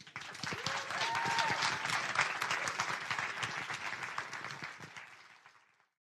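Audience applauding at the end of a short talk, with a brief cheer about a second in; the clapping fades out near the end.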